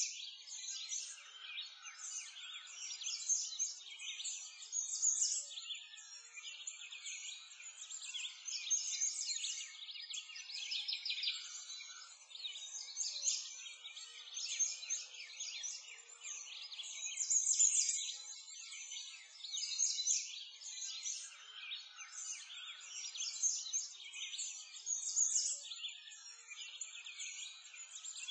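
Dense chorus of many small birds chirping and twittering, with the chirps swelling and fading every couple of seconds.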